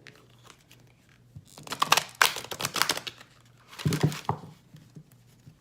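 A deck of large, thick oracle cards being shuffled by hand: a quick run of card clatter about one and a half seconds in, then a shorter burst around four seconds.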